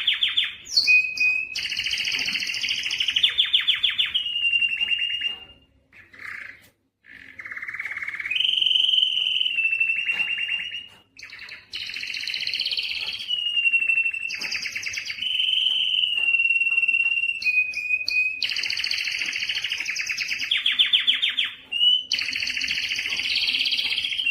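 Spanish timbrado canary singing: fast trilled rolls alternating with long, steady whistled notes, breaking off briefly about six and eleven seconds in.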